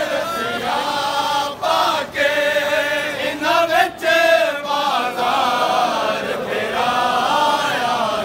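A large crowd of men chanting a nauha, a Shia mourning lament, together in unison, in long sung phrases with brief breaks between them.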